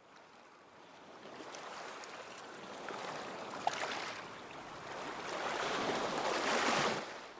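A rushing noise that fades in and swells twice, loudest shortly before it drops away near the end.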